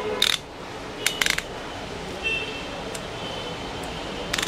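Metal ratchet handle and extension bar of a socket set being handled and fitted together: a few sharp metallic clicks, one just after the start, two about a second in and one near the end.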